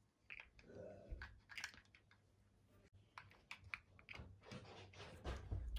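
Faint, scattered clicks and taps of large plastic building blocks being handled and pressed together.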